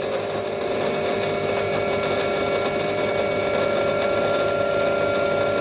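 Metal lathe running steadily with a constant motor whine, a center drill in the tailstock being fed into the spinning aluminium stock.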